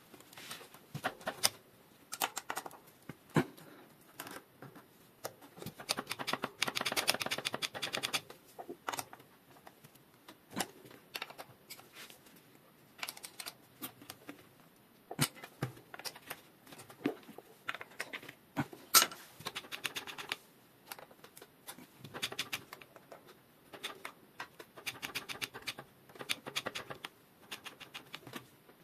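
Small metal clicks, taps and scrapes of a hex key and brake parts as the cable is fitted and clamped on a mountain bike's front V-brake. There are two short stretches of rapid ticking, about a quarter of the way in and again near the end.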